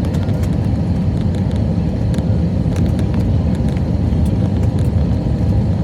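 Steady low rumble of a jet airliner's engines and rushing air, heard inside the cabin on landing, with a few faint clicks and rattles.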